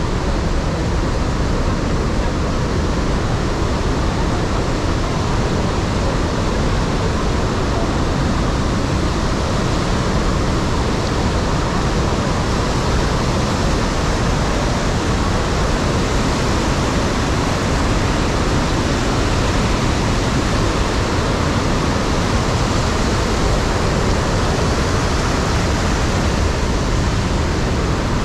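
Iguaçu Falls at the Devil's Throat: a huge volume of water plunging and crashing, heard as a loud, unbroken rushing noise.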